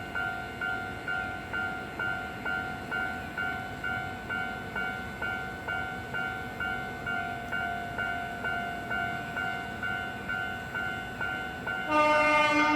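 Japanese level-crossing warning bell ringing, a steady repeating ding about twice a second. Near the end an electric locomotive's horn sounds, louder than the bell.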